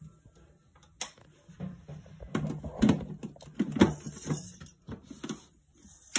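Stainless-steel mixer-grinder jar knocking and clattering as it is set onto the grinder base and locked in place, a sharp click about a second in and a run of knocks after. The grinder motor switches on at the very end.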